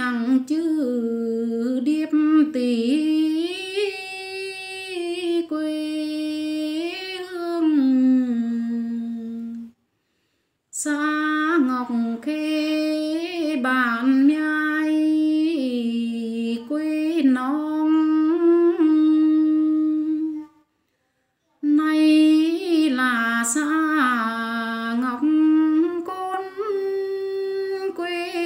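A woman singing unaccompanied, a song in the Tày language, in three long phrases of about ten seconds each. Each phrase bends and wavers in pitch, and the phrases are parted by about a second of silence.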